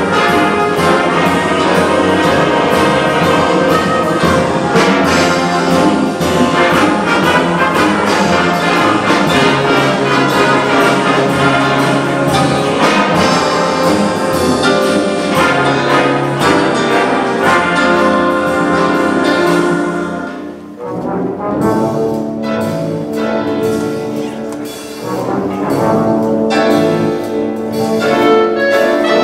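Wind band playing, with trumpets, trombones and tubas carrying a loud full-band passage. About twenty seconds in the sound drops back briefly and thins out, then the band builds again towards the end.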